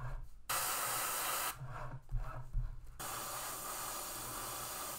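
Airbrush spraying thinned acrylic paint: a hiss of air and paint in one short burst about half a second in, then steady spraying from about three seconds in. The air compressor hums low underneath.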